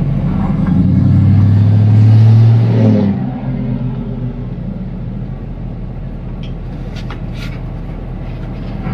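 Engine drone and road noise inside a Ford F-250 pickup's cab while driving slowly. The drone is loudest for the first three seconds, then drops to a lower steady rumble, with a few faint clicks near the end.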